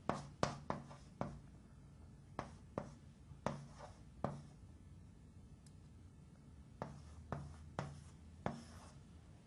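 Hand writing on a board: faint, short, sharp strokes and taps in three clusters with pauses between.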